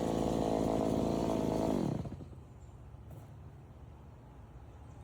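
Chainsaw running at high revs, then the throttle is released about two seconds in: the pitch falls away and the saw drops to a quiet low idle.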